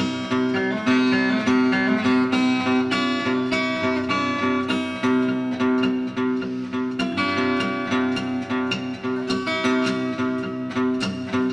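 Seagull acoustic guitar played solo: a steady run of plucked and strummed chords, with no singing.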